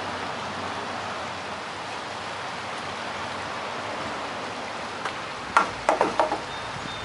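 Steady rushing of a shallow river running over riffles. About five and a half seconds in, a quick run of four or five sharp clinks.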